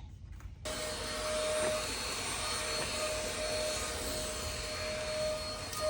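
Zyxrona 450W cordless stick vacuum switching on just over half a second in and then running steadily: a rushing of air with a steady motor whine.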